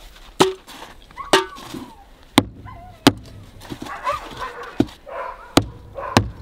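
A hatchet chopping blocks of frozen meat, about seven sharp, unevenly spaced chops. Between the chops, dogs whine.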